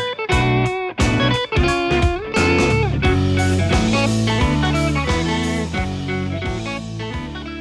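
Background music led by electric guitar with a blues feel, slowly fading out over the second half.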